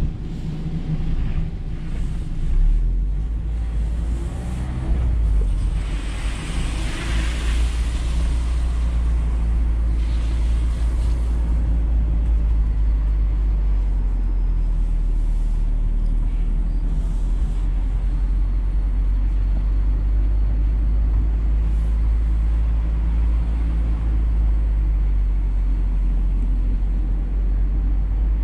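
Mazda MX-5 Miata being driven with the top down: steady engine hum under road and wind noise in the open cockpit. About six seconds in, a rushing hiss swells for a couple of seconds and fades.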